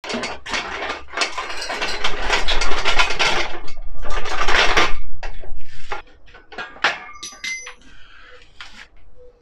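Red steel engine crane being handled and unfolded: dense metal clattering and scraping for about five seconds, then scattered clanks and clinks with a brief metallic ring.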